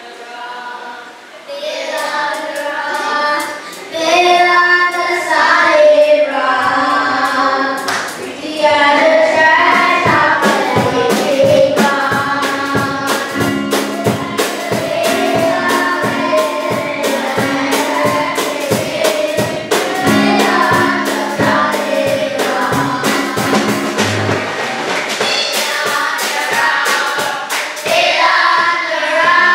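A group of children singing a church song together through microphones, over a steady beat of sharp strikes. The singing comes in strongly about a second and a half in.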